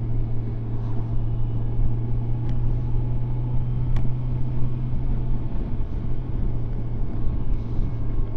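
Kawasaki Versys motorcycle engine running at a steady cruise, a constant low drone mixed with wind and road rumble as heard from the rider's seat.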